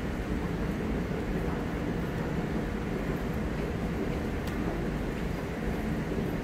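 Steady low rumble and hum of a rail station platform, with no single event standing out.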